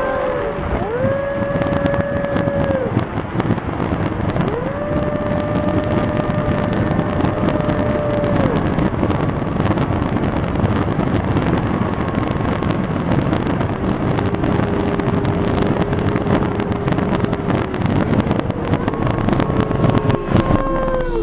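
Fireworks slowed down and played in reverse: whistling shells stretched into several long howling tones that rise in, hold for a few seconds and fall away, over a dense rumble and crackle of stretched-out bursts.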